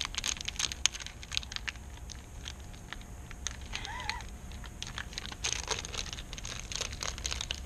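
Crinkling and crackling of a plastic soft-bait bag being pulled and worked at as it resists being torn open, with many scattered sharp clicks. A short pitched wavering sound about four seconds in.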